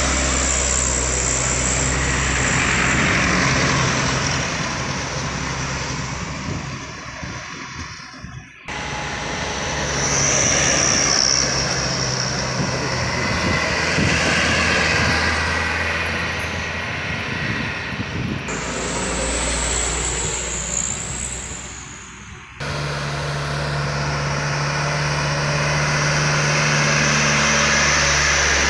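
Small diesel trucks, some laden with sugarcane, driving past close by at full throttle on an uphill road, their engines working hard, with a high whine above the engine sound. The sound changes abruptly twice as separate passes are cut together.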